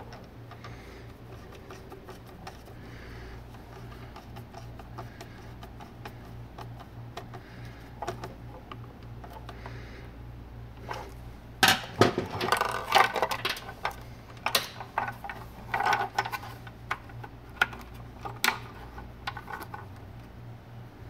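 Hands handling wires and the plastic enclosure of a small electrical box: faint scattered ticks, then from about halfway a run of sharp clicks, rattles and knocks, over a low steady hum.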